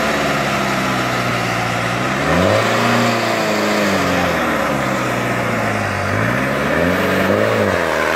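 New Holland 3630 tractor's diesel engine at full throttle under a heavy pulling load in a disc harrow pull. The revs surge up and sag back down twice.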